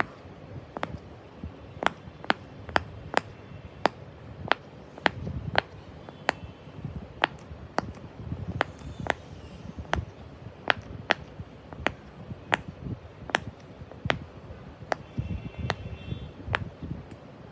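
A long run of sharp taps or clicks, about two a second at slightly uneven spacing.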